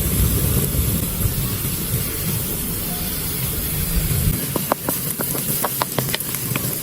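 Food sizzling in hot oil in a pot, a steady hiss that breaks into irregular crackling and spitting from about four and a half seconds in.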